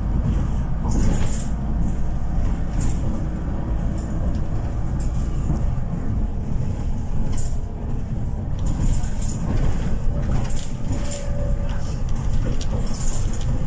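City bus driving along a road, heard from inside at the front: steady engine and road rumble with scattered short rattles and knocks.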